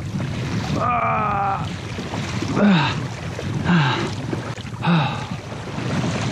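A man grunting with effort three times, each a short grunt falling in pitch, as he strains against a heavy fish on a bent rod, over a steady wash of wind and water against the kayak. About a second in comes a higher, wavering sound.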